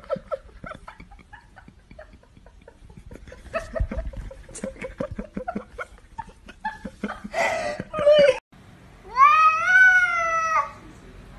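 Cat giving one long, drawn-out yowl about nine seconds in, rising at the start and falling away, the warning cry of a tabby squaring up to another cat. Before it come scattered small knocks and rustles and a short rough cry.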